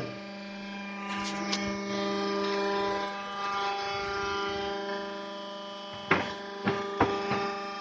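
Electric motor and hydraulic power pack of a concrete block-making machine running with a steady hum. Three sharp clanks near the end as pallets are handled at the machine.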